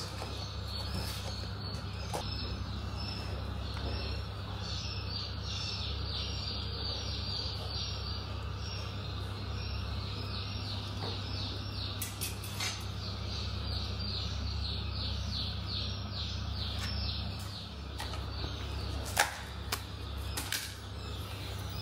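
Handling sounds of plastic deli containers and metal snake tongs: a few sharp clicks, the loudest about nineteen seconds in. A steady low hum and an even, rapid chirping, about three chirps a second, run underneath.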